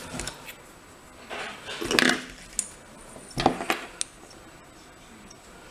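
Small metal parts of an Assa pin-tumbler lock cylinder clinking and rattling as it is taken apart, in two short clusters of clicks: one about a second and a half in, another about three and a half seconds in.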